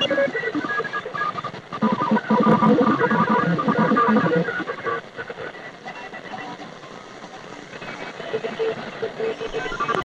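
Shortwave radio receiver tuned to a numbers station, playing a weak signal of broken tones over static hiss. The signal fades about five seconds in, leaving mostly hiss with faint tones, and comes up a little near the end.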